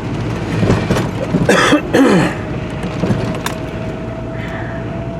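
Pickup truck driving on a snow-covered road, heard from inside the cab: a steady low rumble of engine and tyres with a faint steady whine. About a second and a half in, a brief voice-like sound falls in pitch.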